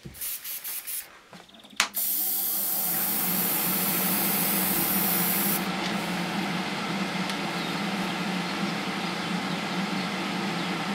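Iwata Neo TRN1 trigger airbrush being flushed through during cleaning. A few short puffs of air come first, then a click, then a steady spray hiss for about three and a half seconds. A steady low hum runs underneath from about two seconds in and goes on to the end.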